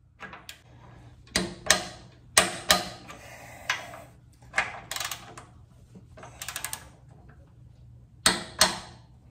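Hand ratchet wrench clicking in short runs and clinking on metal as a front sway bar bolt is run down, with scattered sharp clicks and a quick burst of ratchet ticks about six and a half seconds in.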